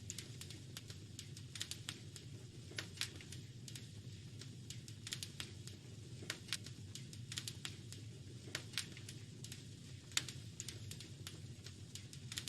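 Wood fire crackling in a fireplace: irregular sharp pops and snaps over a steady low rumble, with a louder pop about ten seconds in.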